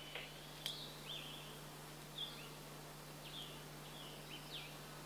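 Birds chirping faintly outdoors: short high calls, each falling in pitch, scattered every half-second to second. A steady low hum runs underneath.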